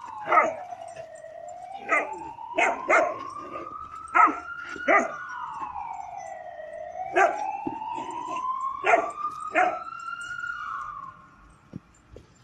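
A dog barking in short, loud barks, about ten in all, during play. Behind them an emergency-vehicle siren wails, slowly rising and falling, and stops shortly before the end.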